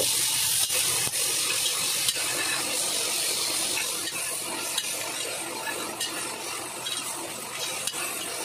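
Sliced onions, garlic and green chillies sizzling in hot oil in a pressure cooker, stirred with a metal spatula that scrapes and clicks against the pot. A steady frying hiss with small scattered clicks.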